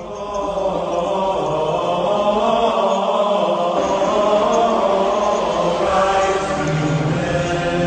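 A choir chanting in long held notes, a sacred-sounding chant laid on as music.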